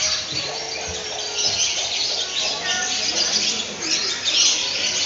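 Many small birds chirping and calling at once in a busy, unbroken chorus of short high chirps.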